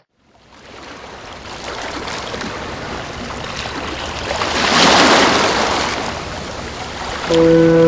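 Rushing water, a steady wash that swells to its loudest about five seconds in and then eases off. Music with sustained tones comes back in near the end.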